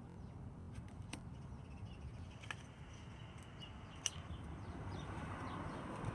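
Cards from a deck being handled: a few sharp taps and clicks, the loudest about four seconds in, over a steady low background rumble. Faint short bird chirps are heard now and then.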